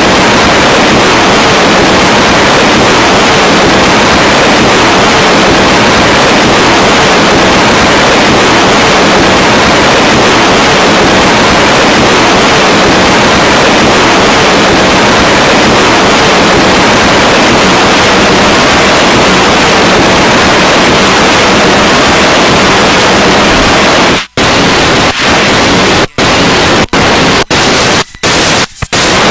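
Harsh noise from a live turntable-and-mixer noise set: a loud, dense wall of static-like noise. About 24 seconds in it starts cutting out and back in abruptly, several times in quick succession.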